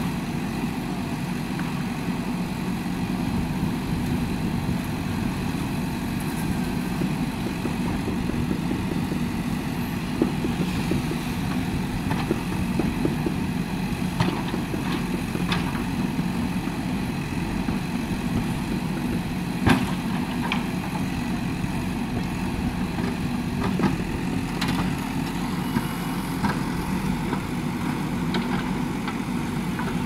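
JCB 3DX backhoe loader's diesel engine running steadily while the backhoe arm works, with a few sharp knocks scattered through.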